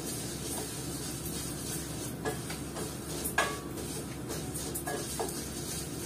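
Wooden spoon stirring in a frying pan and knocking against the metal cookware: about five short knocks, some with a brief metallic ring, the loudest about three and a half seconds in, over a steady low hum.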